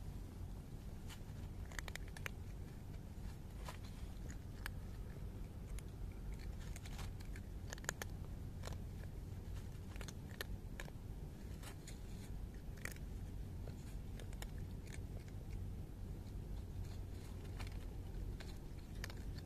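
Calico cat crunching dry kibble, with irregular crisp crunches as it chews, over a steady low rumble.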